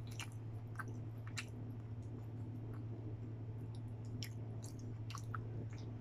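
Close-up chewing, with irregular wet mouth clicks and smacks, as someone eats rice and fried fish by hand. A steady low hum runs underneath.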